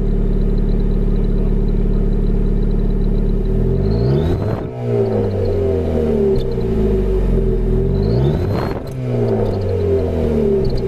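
Car engine idling, then blipped twice, about four seconds in and again near the end, its revs falling back down after each. A cheap exhaust-tip turbo whistle gives a brief high chirp on each blip.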